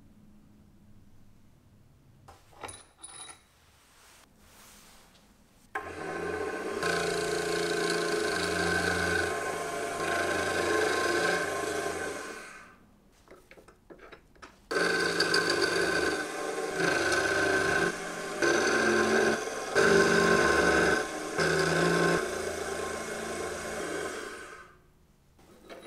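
Small milling machine running, its end mill cutting a brass part, with a steady motor whine and cutting noise. It starts about six seconds in after a few faint handling clicks, stops briefly about halfway, then resumes in several short passes until just before the end.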